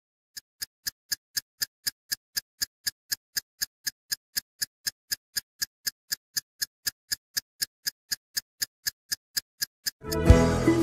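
Steady clock-like ticking, sharp and even at about three and a half ticks a second. Music comes in loudly just before the end and covers the ticking.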